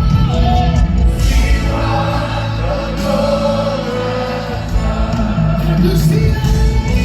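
Live gospel worship music: a choir of voices sings long held notes over a band with heavy bass.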